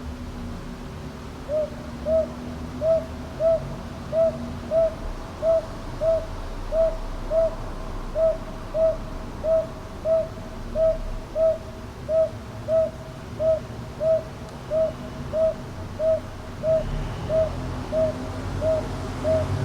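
A northern boobook (Japanese aobazuku) hooting: a long, even run of short, low hoots at about three every two seconds, starting a second and a half in. A low background rumble runs underneath.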